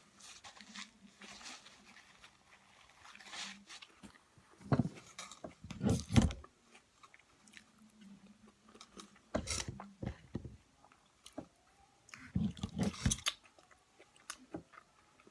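Close-up eating sounds of a person biting and chewing a Chipotle burrito: soft wet mouth noises, with three louder clusters of crackling and clicking about a third, two-thirds and five-sixths of the way through.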